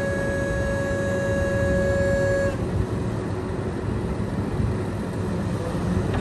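Scania P380 vacuum excavator truck running: a low, steady rumble with a high, steady whine over it that cuts off suddenly about two and a half seconds in, leaving the rumble.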